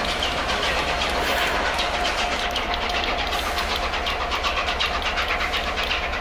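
Gresley A3 three-cylinder steam locomotive 'Flying Scotsman' pulling its train away, its exhaust beating quickly at about five or six beats a second over the steady rush of steam and the rolling of the coaches.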